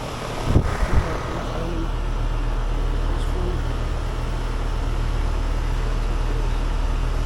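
Outdoor air-conditioning condenser units running together with a steady low hum that swells in the first second or two and then holds. Two sharp knocks come in the first second.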